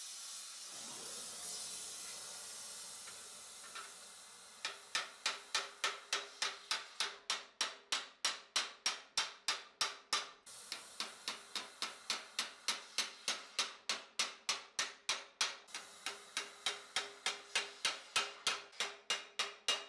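Hand hammer striking a torch-heated spot on a steel cuirass plate held over a stake: a quick, even run of metal-on-metal blows, about three a second, with a ringing note under them. For roughly the first four seconds the blows stop and a steady gas-torch hiss is heard instead.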